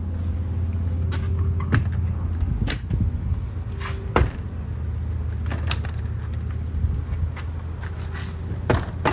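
A few scattered sharp clicks and knocks, about five in all, from the travel trailer's entry door being unlocked and opened, over a steady low hum.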